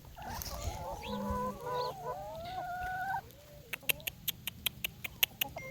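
Chickens clucking, with drawn-out wavering calls for about three seconds, followed by a quick run of sharp clicks, about six a second.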